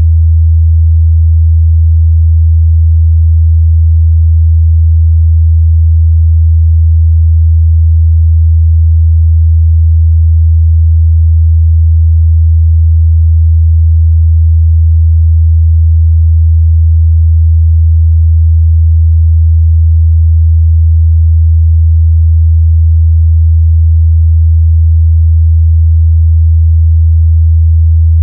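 A steady 81 Hz sine-wave test tone, a low, constant hum with no change in pitch or loudness.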